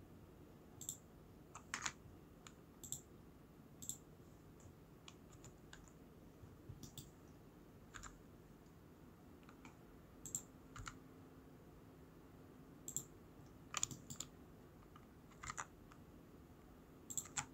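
Scattered clicks of a computer mouse and keyboard, one or a few at a time with pauses between, over a faint steady hum.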